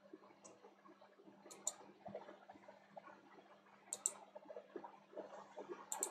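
Faint computer mouse clicks, several in quick pairs, about four times over a steady low hum.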